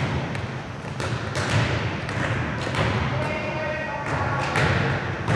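Volleyballs being struck and bouncing on a hardwood gym floor: several sharp smacks and thuds a second or more apart, echoing in the hall, with players' voices in the background.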